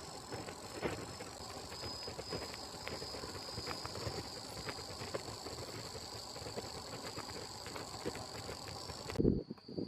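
Insects keeping up a steady, high-pitched drone outdoors, with scattered small clicks and rustles. About nine seconds in, the drone cuts off abruptly and loud, irregular low rustling takes over.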